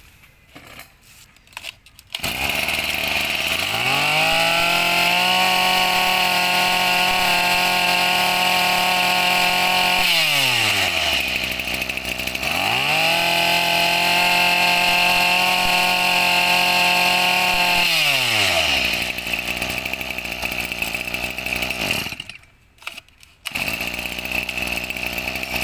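Tanaka 23cc two-stroke brush cutter engine catches about two seconds in, then is revved from idle to full throttle twice, each time held high for several seconds before dropping back to idle. It falls silent briefly near the end, then runs again.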